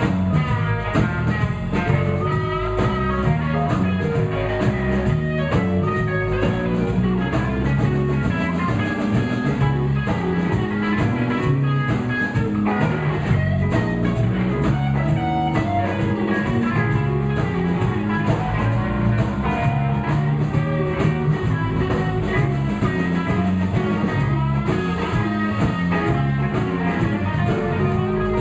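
Live blues band playing an instrumental passage: electric guitar taking the lead over bass and a drum kit keeping a steady beat.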